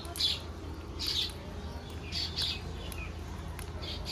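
Pet green parrot giving a few short, high chirping squawks, spaced about a second apart, over a steady low hum.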